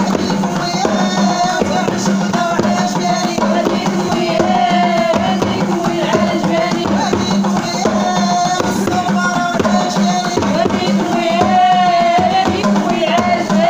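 Music with hand drums beating a steady rhythm under a wavering melody line.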